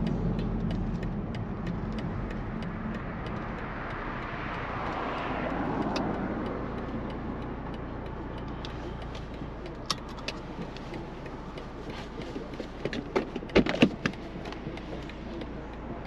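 BMW Z4 sDrive30i's turbocharged four-cylinder engine and road noise easing off as the car slows, with a swell of noise that sweeps down in pitch about five seconds in. Near the end, a few sharp clicks and knocks over a low steady hum.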